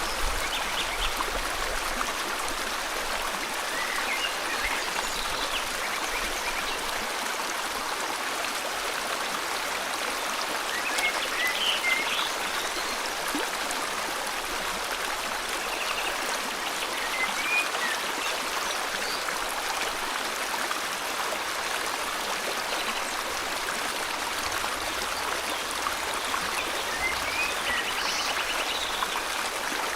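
River water flowing steadily, with a few short bird chirps and trills scattered over it.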